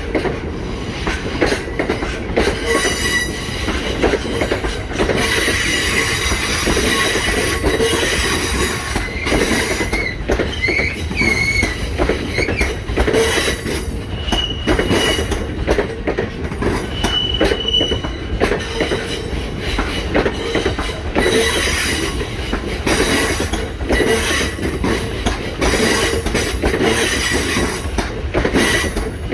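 Wagons of a Freightliner cement freight train rolling past, a steady loud rumble with clatter over the rail joints and short, high wheel squeals that come and go, mostly in the second half.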